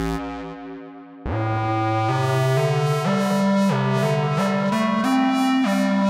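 Yamaha CS01 analog monophonic synthesizer played through a tape-echo delay. A low held note dies away, and after a short gap about a second in, a line of notes starts, stepping up and down a few times a second.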